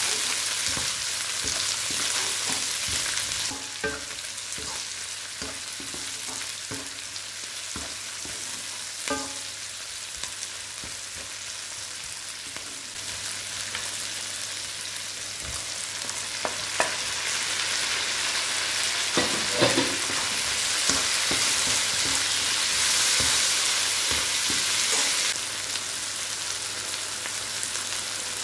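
Food sizzling in hot oil in a pan while a spatula stirs it, with scattered clicks and scrapes of the spatula against the pan. The sizzle swells louder a few seconds before the end, then drops back suddenly.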